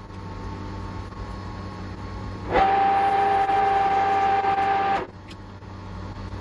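A workshop metalworking tool working on aluminium oil-cooler parts. A low steady hum runs first. About two and a half seconds in, a loud run with a steady whine starts abruptly and cuts off suddenly after about two and a half seconds.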